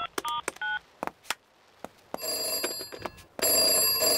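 A few quick telephone keypad beeps as a number is dialled, then a couple of clicks. Then a telephone rings twice, each ring about a second long: the call is ringing through at the other end.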